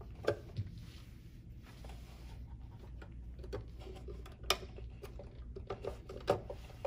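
Light clicks and scraping of a small module being handled and fitted onto a metal DIN rail inside an enclosure, with sharper clicks about four and a half seconds in and again near the end as its clip snaps onto the rail.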